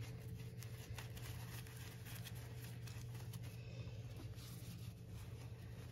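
Faint rubbing of a grooming-wipe glove on a dog's paw and leg fur, with a few light ticks, over a steady low hum.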